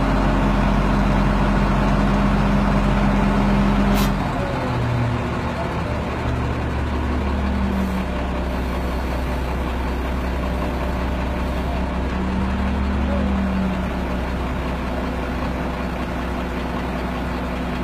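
Boat-lifting crane truck's engine running steadily under load while it hoists. About four seconds in there is a sharp click and the engine note drops, then it rises briefly twice later.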